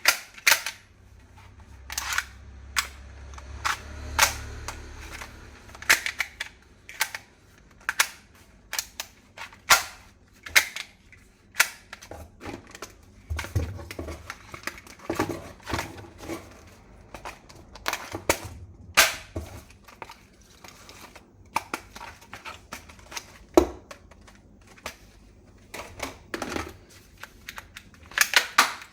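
Toy gun being handled: a long run of irregular sharp clicks and snaps, about one or two a second.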